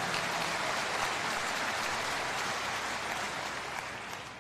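A large audience applauding, a dense steady clatter of many hands that dies away over the last second or so.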